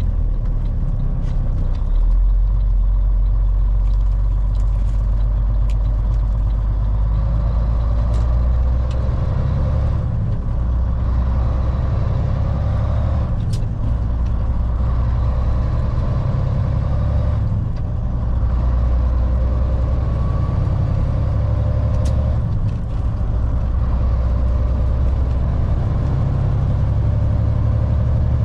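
Volvo VNL780 semi truck's diesel engine and road noise heard from inside the cab while driving: a steady low drone that drops briefly and picks up again a few times.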